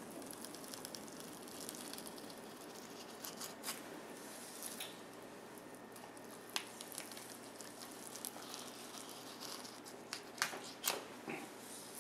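Fillet knife slicing through raw Chinook salmon flesh along the belly bones: faint wet cutting sounds with a few small clicks, three close together near the end.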